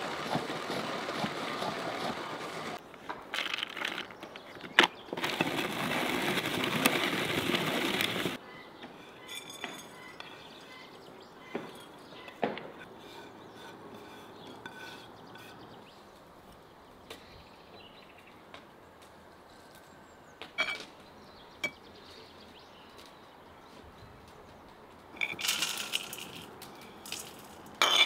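A metal spoon scraping and clinking against dishes and a stainless steel bowl while ground walnuts are tipped from one to the other, with the loudest cluster of clinks near the end. A steady rushing noise fills the first eight seconds, and there are a few scattered small clicks in between.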